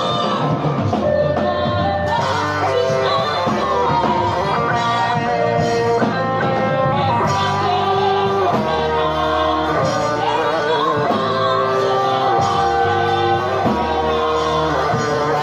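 Live gospel worship band music: an electric guitar playing lead lines over bass, with singing.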